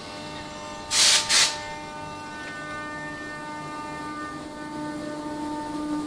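Train pulling out of a station: two short, loud hisses about a second in, then a steady hum of several held tones that slowly grows louder.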